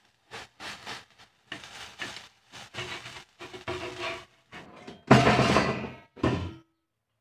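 A knife blade scraping and cutting against an iron frying pan in a series of short, irregular strokes, the pan ringing faintly; the longest and loudest scrape comes about five seconds in.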